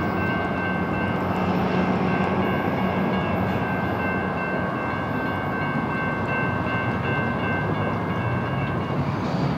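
Freight train rolling on through the yard: a steady rumble of wheels on rail under a steady high ringing that stops about nine seconds in.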